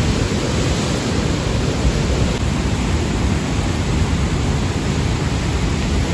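Loud, steady rush of a swollen mountain river in flash flood, its floodwater running high and fast.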